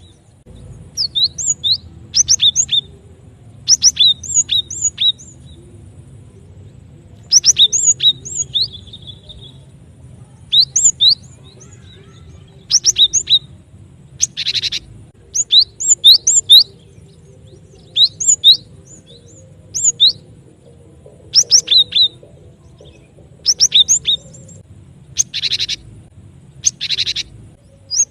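Cinereous tit (gelatik batu) calls played as a bird-trapping lure: short phrases of sharp, high chipping notes repeated every second or two, with a few longer harsh rasping calls about halfway through and near the end.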